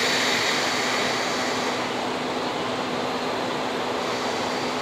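EF65 electric locomotive standing at a station platform, its onboard machinery giving off a steady hum with a low steady tone. A high hiss at the start dies away about two seconds in.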